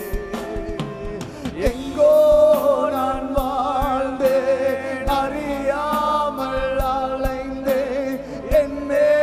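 A man singing a slow Tamil Christian worship song, with long held notes, over instrumental accompaniment with a steady beat.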